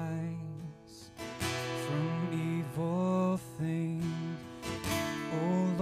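Slow worship song performed live: an acoustic guitar strummed steadily, with voices singing long, held notes in phrases over it.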